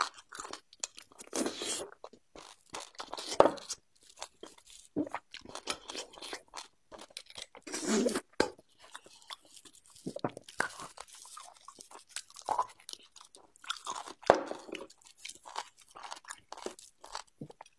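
Close-miked eating of braised beef bone marrow: chewing and biting, with mouth noises coming in irregular spells, the loudest about eight seconds in.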